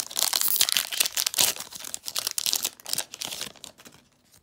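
Foil wrapper of a Pokémon Shining Fates booster pack being torn open and crinkled by hand, a dense crackling that dies away near the end.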